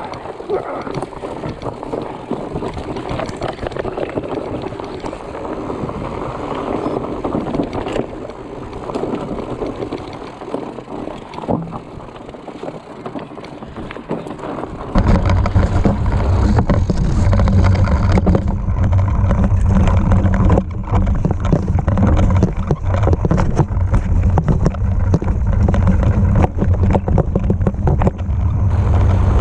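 Fat bike riding fast over a rough dirt trail: tyre noise and the bike rattling and knocking over rocks. About halfway through, a much louder low rumble sets in suddenly and stays.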